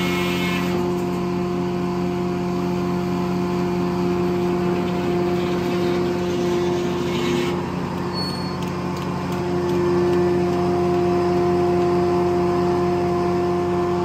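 Circle sawmill running: a steady drone from the mill's power unit and spinning blade, with a hiss of the blade cutting through the log that drops away about halfway through.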